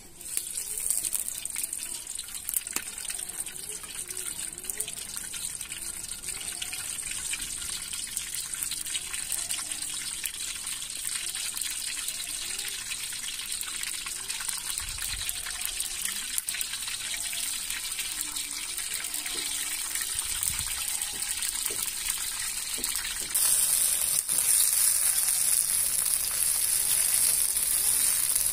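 Chopped tomatoes hitting hot oil in an iron karahi and frying with a steady sizzle that starts suddenly and grows louder near the end.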